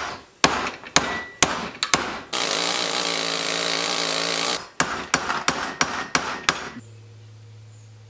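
Steel hammer blows on a punch driving a rust-seized pin out of a truck door hinge clamped in a vise. A burst of about two seconds from a pneumatic air hammer on the pin comes between two runs of separate strikes. A faint low hum follows near the end.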